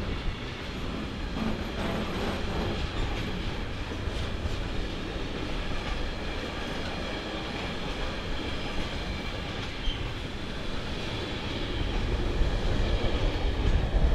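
Container freight train's wagons rolling past on the rails in a continuous rushing rumble, with faint high-pitched whining tones over it; it grows louder near the end as the last wagons pass.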